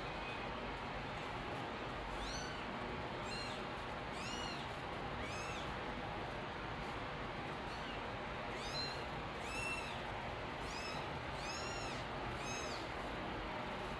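Kittens mewing: about ten short, high-pitched mews, each rising then falling, roughly one a second with a pause in the middle, over a steady background hiss.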